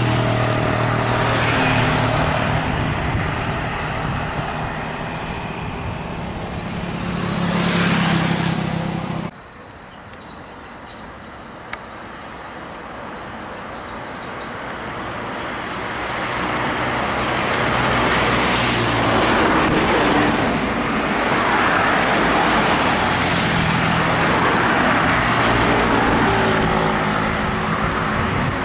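Bus engines on a road. A bus engine runs and grows louder as the bus drives off, then cuts off abruptly. After that another bus approaches, its engine and tyre noise building to a loud, steady rush as it passes, with the engine note coming through again as it goes by.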